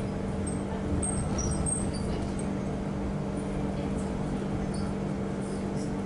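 A moving tram heard from inside the passenger cabin: a steady running hum with a constant low tone, and a few brief high-pitched squeaks between about half a second and two seconds in.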